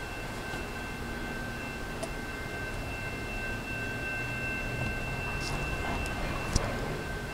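Canadian National train rolling over the bridge with a low rumble and a steady high-pitched squeal of two or three tones from its wheels on the rails. A sharp click comes about six and a half seconds in.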